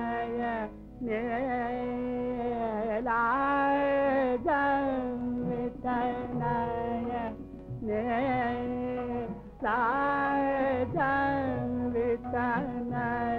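An early recording of a solo voice singing Indian classical-style music: long, ornamented phrases with sliding, wavering pitch, separated by short breaths, over a steady low drone. The sound is thin and narrow, like an old gramophone record.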